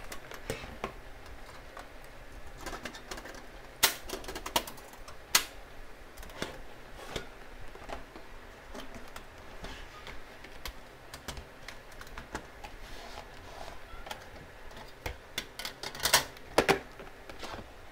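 Irregular clicks and knocks of hard plastic as a portable butane gas stove is handled and packed into its hard plastic carry case, with a few sharper knocks, the loudest cluster near the end.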